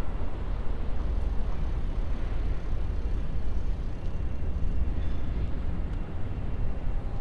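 Wind buffeting the microphone of a bicycle-mounted action camera while riding, a steady fluttering low rumble with a fainter hiss above it.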